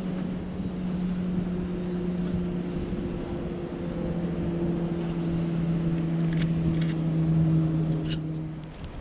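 An engine running with a steady low drone, stepping down slightly in pitch about three seconds in, then stopping shortly before the end, with a few faint clicks just before it stops.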